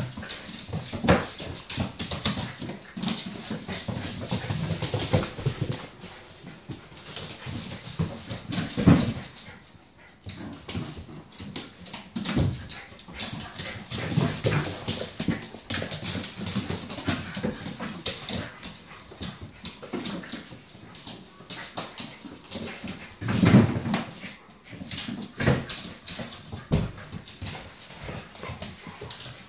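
Two puppies play-wrestling on a laminate floor: whimpering dog vocalisations, with many short clicks and knocks from claws scrabbling and bodies bumping into the wall and furniture.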